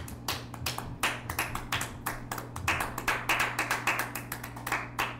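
A few people clapping their hands after the sermon closes: sharp, uneven claps that grow denser about a second in.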